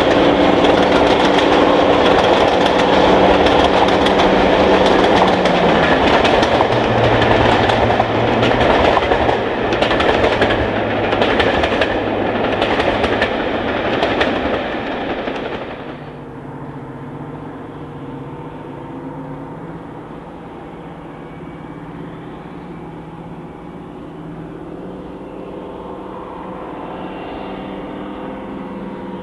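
Class 55 Deltic diesel locomotive hauling a train, its twin Napier Deltic two-stroke engines working under load, with a steady engine drone and wheel clatter. About halfway through, the sound drops sharply to a fainter engine drone.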